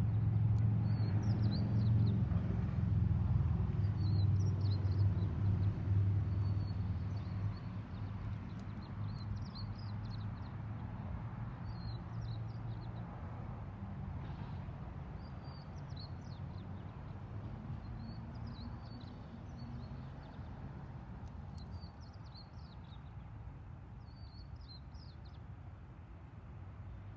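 A low engine hum, loudest for the first several seconds and then fading away, with a small bird chirping in short repeated phrases every second or two.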